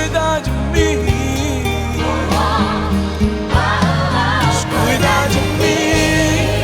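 Christian gospel-pop music: a sung melody with vibrato over a steady bass and keyboard backing.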